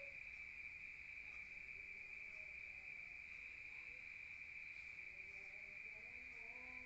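Crickets chirring at night in a steady, unbroken high-pitched chorus. Near the end a rooster begins to crow.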